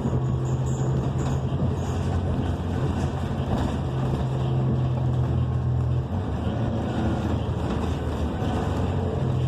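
Cummins Westport ISL G natural-gas engine of a New Flyer XN40 transit bus running under way, heard from inside the cabin as a steady low drone with road noise. The drone lowers about six seconds in.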